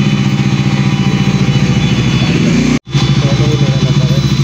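Bajaj Dominar 400's single-cylinder engine running at a steady idle with an even, pulsing beat. There is a brief dropout about three seconds in.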